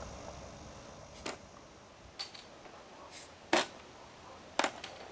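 A handful of short, sharp clicks and knocks over a faint background hiss, the loudest about three and a half seconds in and another about a second later.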